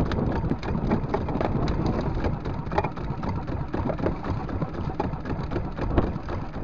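Wind buffeting the microphone and choppy waves slapping against a small wooden outrigger fishing boat: a steady rushing noise with scattered small splashes and knocks.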